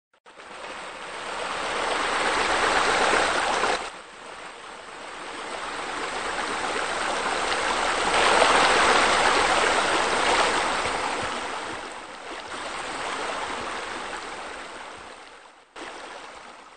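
Running, splashing water, a steady rushing noise that swells and fades, with abrupt breaks about four seconds in and near the end.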